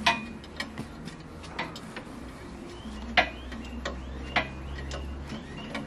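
Irregular sharp metallic clicks and clinks of hand tools against metal parts of an engine bay, around the exhaust manifold; the sharpest comes about three seconds in. A low steady hum runs underneath.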